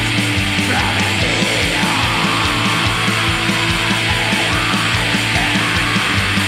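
Black metal recording: a dense wall of distorted guitars over a steady, regular drum beat, loud throughout.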